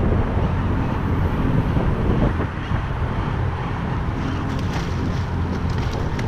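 Wind buffeting the microphone on a small fishing boat, with a steady low hum underneath and a few faint ticks in the second half.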